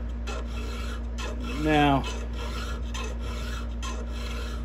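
Hand file rasping in repeated strokes across a chainsaw chain's cutter, square-filing a .325 chain. A brief rising hum a little under two seconds in is louder than the filing.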